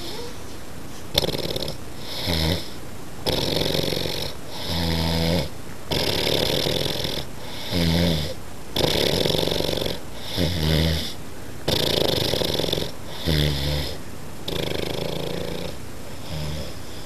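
An old man snoring in his sleep, with a repeating cycle about every two seconds: a harsh, noisy breath followed by a low, pitched rattling snore.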